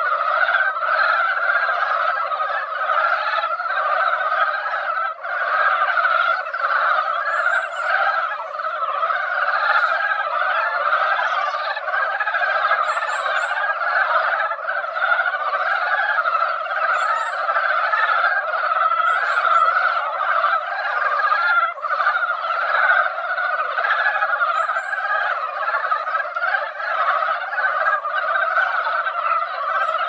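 Dense breeding chorus of Korean brown frogs: many overlapping low croaking calls merged into a continuous, unbroken din, with faint short high chirps now and then.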